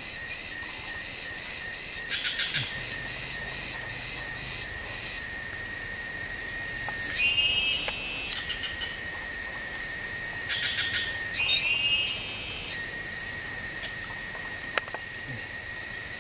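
Forest insect chorus: a steady high-pitched shrilling and buzzing, with chirping calls twice in the middle and two sharp clicks near the end.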